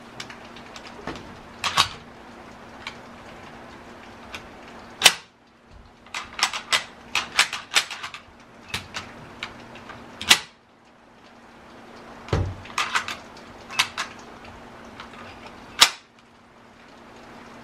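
Sharp metal clicks and clacks from an M1 Garand rifle being handled and worked in its wooden stock, with several louder clacks and a dull knock of the rifle against the bench about twelve seconds in.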